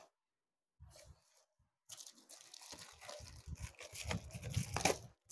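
Clear plastic accessory packaging crinkling and crackling as it is handled, starting about two seconds in after a faint rustle, with a sharper crackle near the end.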